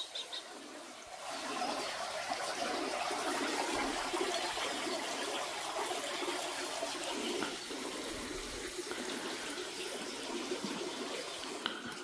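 Steady rush of running water, growing louder about a second in and then holding even.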